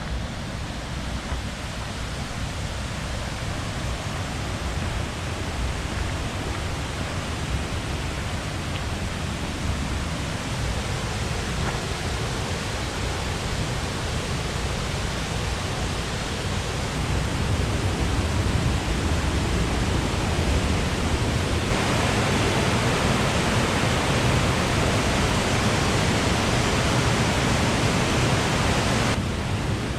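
Waterfall: a steady, dense rush of falling water. It gets suddenly louder and brighter about two-thirds of the way in, then drops back shortly before the end.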